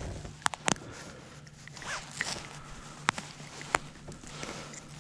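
Rustling and a few sharp clicks as a crappie is reeled in and handled, over a faint steady low hum.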